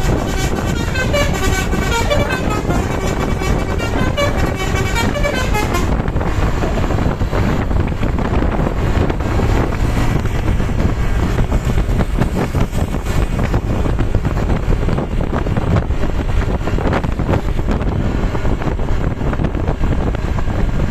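Bus's Basuri telolet horn, a multi-tone musical air horn, playing a quick tune of notes stepping up and down for about six seconds. After that it gives way to steady wind and traffic noise.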